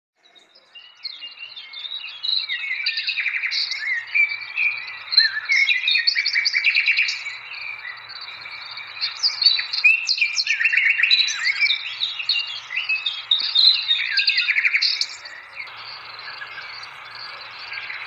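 Small birds chirping and twittering in quick, overlapping high calls, in two busy stretches with a short lull between them and quieter chirping near the end.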